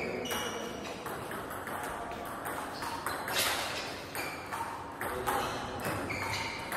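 Table tennis rally: a celluloid-type ball clicking back and forth off the rubber-faced bats and the table top in a quick, regular run of sharp pings.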